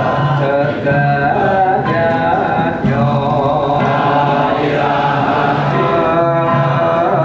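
Devotional chanting of dzikir and sholawat sung in Javanese macapat style, a continuous melodic chant with a repeating low tone beneath it.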